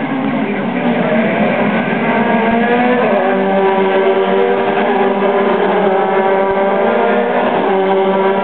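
Engines of a pack of Formula Ford single-seater race cars passing together. Several high engine notes overlap, rising in pitch over the first few seconds as the cars accelerate, then holding steady.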